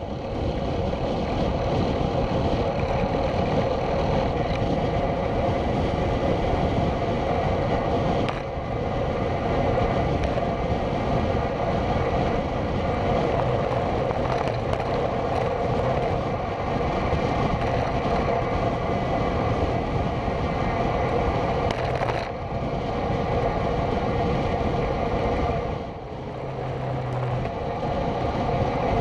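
Steady rush of wind over a bike-mounted camera's microphone, with road-bike tyres rolling on tarmac, while riding along a country lane at speed. It dips briefly a few times.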